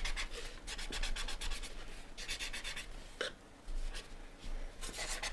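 Graphite pencil shading on drawing paper: rapid back-and-forth rubbing strokes, about eight to ten a second, in short runs with brief pauses, laying in a soft fading shadow.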